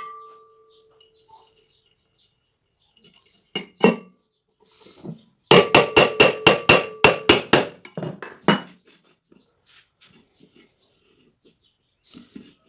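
Metal parts of a ceiling fan struck with a hammer, each blow ringing briefly. A single knock comes first, then two more, then a quick run of about a dozen blows at roughly five a second, and a couple of slower ones to finish.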